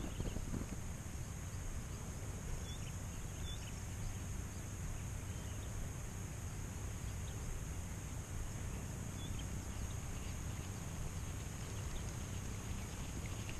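Steady open-air background noise: a low rumble like wind on the microphone under a constant high hiss, with a few faint, short high chirps.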